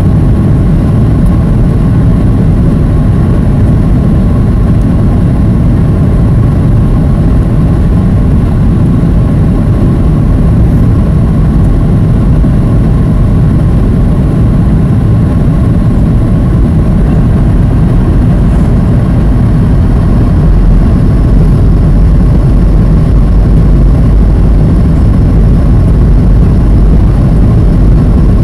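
Boeing 737 cabin noise heard from a window seat: a loud, steady rumble of the jet engines and airflow during the descent on approach with flaps extended, growing slightly louder near the end.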